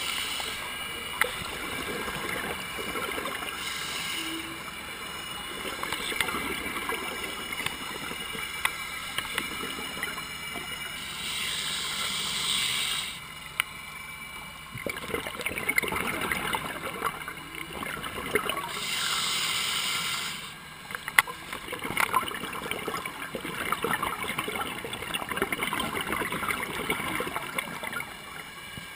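Heard underwater: a scuba diver's regulator exhaling bubbles in rushing bursts about eight seconds apart, one breath after another, over a steady bed of fine crackling clicks.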